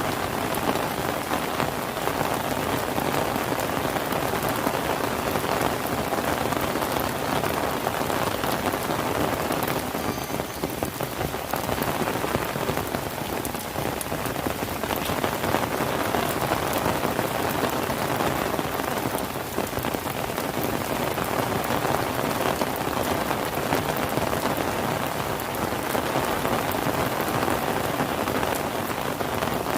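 Steady rain falling, a dense even hiss of countless drops with slight swells in intensity.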